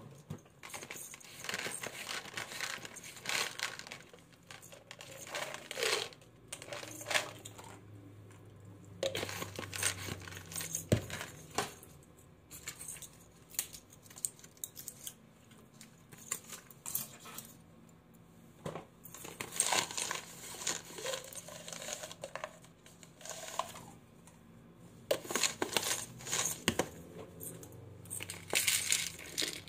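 Pill bottles and a blister pack handled on a hard countertop: foil and plastic crinkling as capsules are pressed out, and bottles clicking and being set down, in bursts with quieter pauses between.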